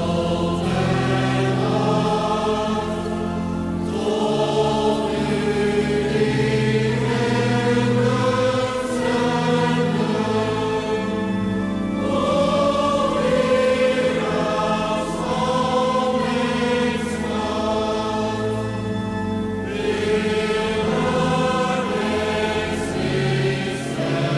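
Music: a Dutch metrical psalm sung slowly in long, even notes (the non-rhythmic style), with voices over sustained low accompaniment.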